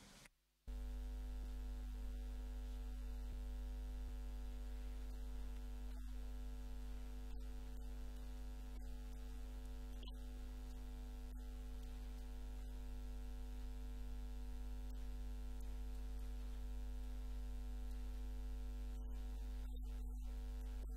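Steady electrical mains hum, a low drone at about 50 Hz with a stack of overtones, starting about half a second in, with a few faint clicks.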